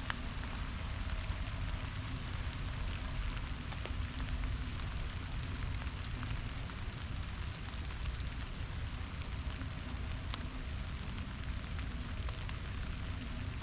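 Light rain falling on leaves: a steady hiss with scattered faint drop ticks, over a constant low rumble.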